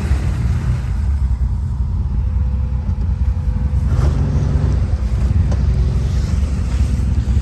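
Quad bike (ATV) engine running steadily at low revs, picking up briefly about four seconds in.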